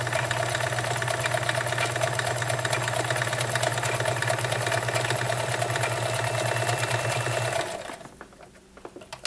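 Vintage Kenmore model 1941 convertible free-arm sewing machine stitching fabric at a steady speed with a fast, even rhythm; freshly serviced, it runs smoothly. It stops about seven and a half seconds in, followed by a few light clicks.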